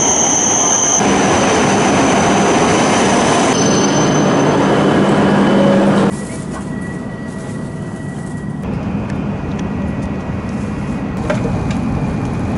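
An E7 series Shinkansen pulling into an underground platform: a loud steady rush with a high whine over it. About six seconds in, the sound drops suddenly to the quieter, steady running noise heard inside the train's cabin.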